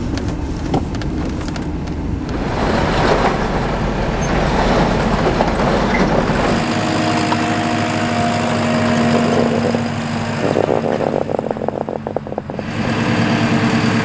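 Pickup truck cab interior while driving, a low steady road rumble; then, about six and a half seconds in, a JCB compact track loader's diesel engine running steadily, with a stretch of fast even pulsing about ten seconds in.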